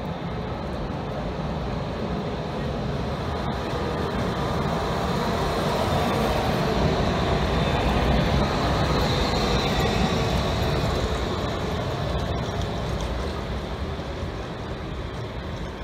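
A Končar TMK 2200 low-floor tram passing close by on street track: steel wheels rolling on the rails and its drive running, growing louder to a peak about halfway through and then fading away.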